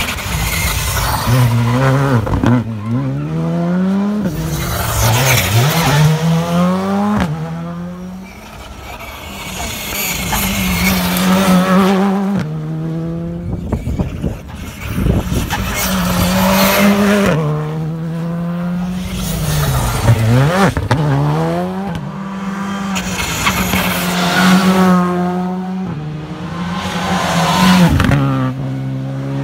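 Škoda Fabia R5 rally car's 1.6-litre turbocharged four-cylinder engine driven hard, its pitch climbing through the gears and dropping at each shift. The sound comes in several separate passes, each cut off suddenly as the next begins.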